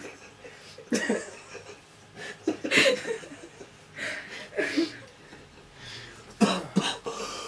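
Two men giggling in short bursts with some coughing, the giggles of an endorphin rush and the coughs of a throat burnt by a 7.1-million-Scoville chilli extract sauce.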